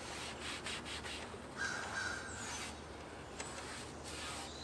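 Cloth rag rubbing and wiping over the steel top of a Blackstone tabletop griddle, drying it after a wash. A brief high steady note sounds about one and a half seconds in.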